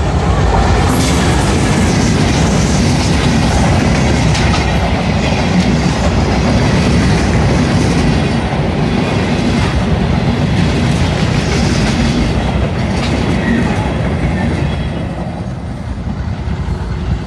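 Benapole Express passenger coaches passing close by at speed: a loud, steady rumble with wheels clattering over rail joints. The noise drops away near the end.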